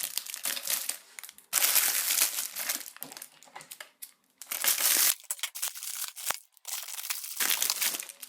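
Crinkly packaging being unwrapped by hand, rustling and crinkling in several bursts with short pauses between, the loudest about two seconds and five seconds in.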